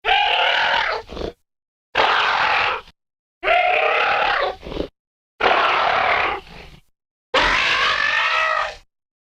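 Velociraptor sound effect: five separate calls in a row, each about a second long, with short gaps of dead silence between them.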